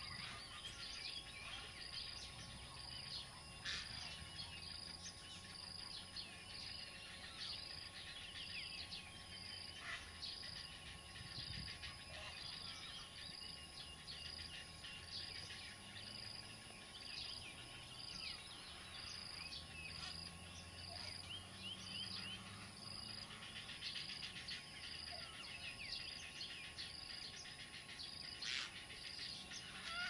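Insect chorus: a steady high whine and a high note pulsing evenly, with many short bird chirps and chattering calls over it.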